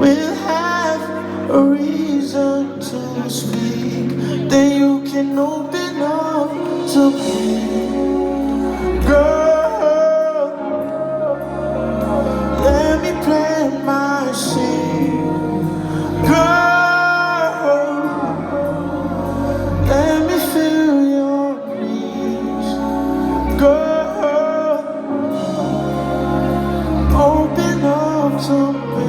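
Live slow R&B song: long sung vocal lines and runs over deep, sustained bass notes and chords.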